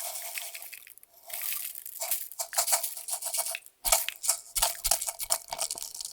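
Clear slime with mixed-in makeup and glitter being pressed and worked by hand, giving dense runs of crackling pops and clicks that pause briefly twice.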